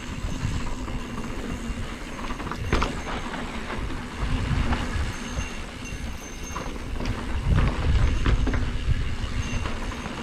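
Mountain bike rolling along a dirt singletrack, tyres on packed dirt and the bike rattling and clicking over bumps, with wind rumbling on the handlebar-mounted camera.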